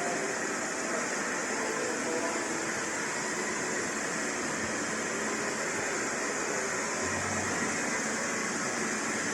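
Steady machine whir and hiss at an even level, the running noise of a powered-up CNC lathe with no cutting or sudden events.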